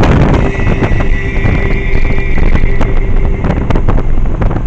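Wind buffeting hard on the microphone of a motorcycle moving at road speed, over the rumble of the bike and tyres on the road.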